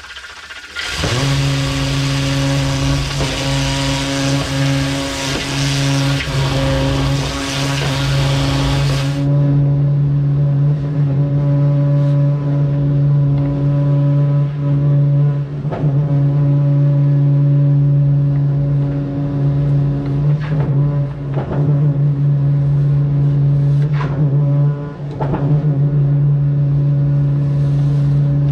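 A high-pressure drain jetter running under pressure: a steady loud hum, with a hard hiss of spraying water over it that cuts off about nine seconds in. A few short knocks follow later.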